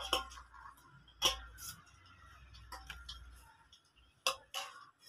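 Stainless steel bowl and plate knocking and clinking together as sprout chaat is tipped and scraped out of the bowl onto the plate: a handful of sharp separate clinks spread a second or so apart.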